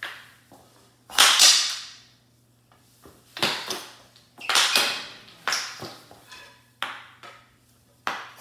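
Hockey stick blades hitting and scraping a puck across a hardwood floor: a string of sudden scraping hits, the loudest and longest about a second in.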